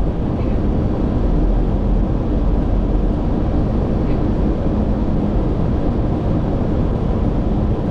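Steady rumble of airflow and engines heard inside a Boeing 737-800 cockpit on final approach, with landing gear down and flaps at 30.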